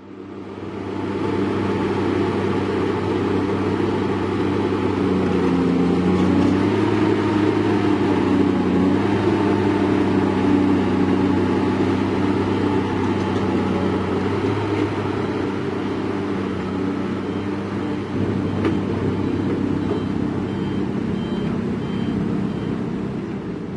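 Heavy diesel engine of construction machinery running steadily, its pitch shifting briefly a few seconds in. Faint repeated high beeps near the end.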